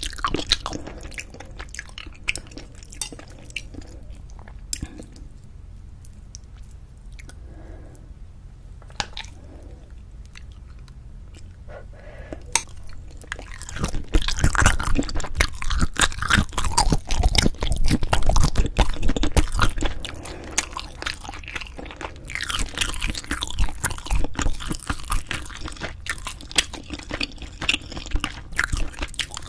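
Close-miked chewing and wet mouth sounds of someone eating braised spicy chicken with cheese, with fine clicks and smacks throughout. The chewing is softer in the first part and grows louder and busier about halfway through.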